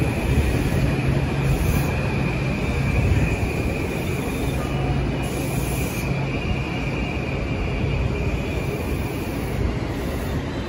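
Metro-North M8 electric multiple-unit train pulling out of the station: a steady high whine over a low rumble, fading toward the end as it moves away.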